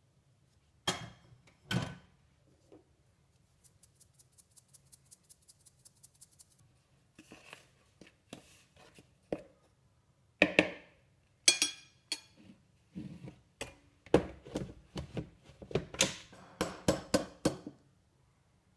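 A small metal spoon stirring dry flour and sugar in a mixing bowl, tapping and clinking against the bowl's sides. The sound is a scattering of knocks, then a run of quick faint ticks, then many fast taps and clinks through the second half.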